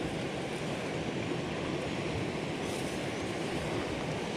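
Steady rushing of flowing river water, an even, continuous noise.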